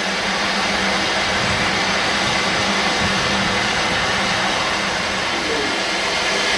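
Steady hiss of steam escaping from a narrow-gauge steam locomotive standing at rest.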